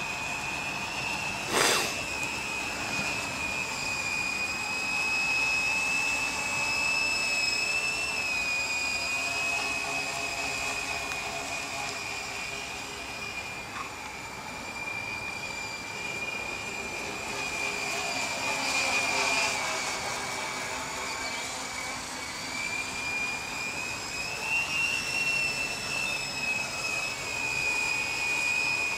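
Mini tricopter's three 18 g brushless motors spinning 7x6 slow-fly props in flight: a steady high whine that wavers slightly in pitch as the throttle changes. A sharp knock sounds about a second and a half in.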